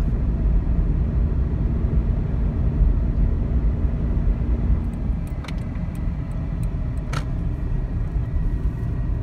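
Car driving on the road, heard from inside the cabin: a steady low rumble of engine and tyre noise, with a faint hum that stops about five seconds in. A few short clicks come later.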